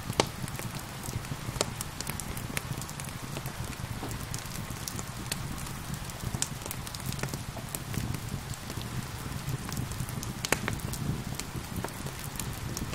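Wood fire crackling with frequent sharp pops, two louder ones near the start and about ten seconds in, over a steady hiss of gentle rain.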